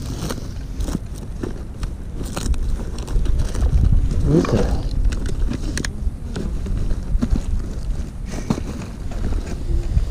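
Rustling, crackling and clicking of gear being handled in a nylon fishing tackle bag, over a steady low rumble. One short pitched sound bends up and down about four and a half seconds in.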